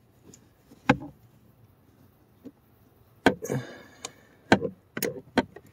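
A few sharp, irregularly spaced clicks and taps from a ratchet socket wrench with a T20 bit being fitted and tried on a small screw, one followed by a brief rattle. The wrench is too thick to fit and does not turn the screw.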